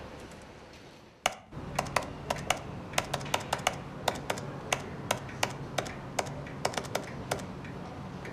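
Typing on a laptop keyboard: about twenty irregular key clicks, starting about a second in and stopping near the end.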